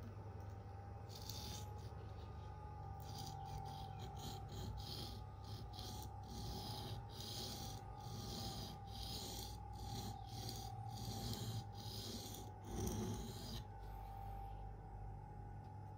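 Spyderco Endura's K390 steel blade stroked back and forth on an Atoma diamond plate: a run of rasping strokes, about two a second, that stops a couple of seconds before the end, as the bevel is ground out to the plunge grind.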